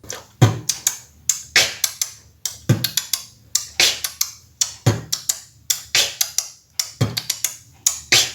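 Mouth beatboxing a steady beat: a deep kick about every two seconds, hissy snare-like strokes between the kicks, and quick sharp 'ch' small hi-hat clicks made by pulling the tongue tip back off the upper teeth filling the gaps.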